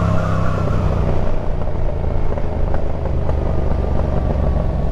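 Yamaha MT-07's 689 cc parallel-twin engine running as the motorcycle is ridden.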